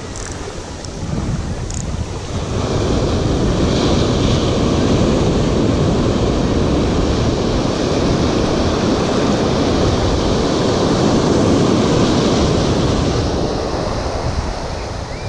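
Surf washing up the beach and rushing through the shallows, building about two and a half seconds in and staying loud, with wind rumbling on the microphone.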